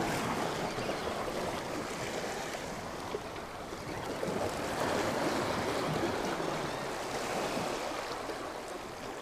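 Sea waves washing against jetty rocks, a steady rush that swells about halfway through and then eases.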